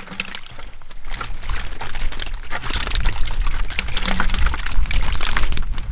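Live bluegill and crappie poured out of a plastic bucket onto a wire-mesh fish basket: a continuous run of wet slaps, flops and clicks as the fish and water tumble out and land on the mesh.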